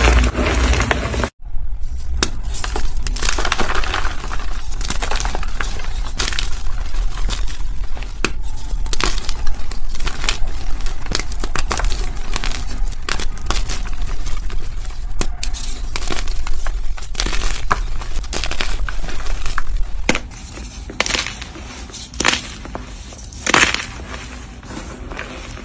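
Dyed gym chalk blocks being crushed, a dense run of crisp crunches and crackles that drops to quieter, sparser crumbling for the last few seconds.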